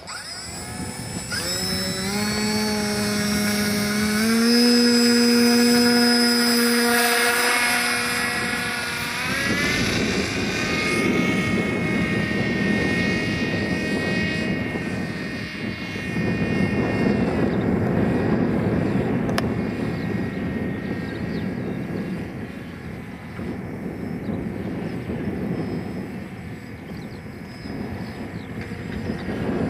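Electric motor and propeller of a foam RC model plane at full throttle for a hand launch: a whine that climbs in pitch over the first few seconds and holds, then fades as the plane flies away. Gusty wind noise on the microphone takes over after about ten seconds, with the distant propeller hum fading under it.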